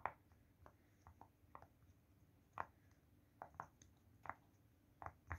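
Silicone pop-it fidget toy bubbles being pressed through one by one, giving faint, soft pops at an irregular pace of roughly two a second.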